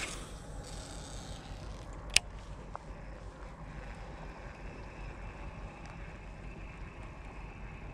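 Steady low outdoor rumble with no clear source, with one sharp click a little over two seconds in.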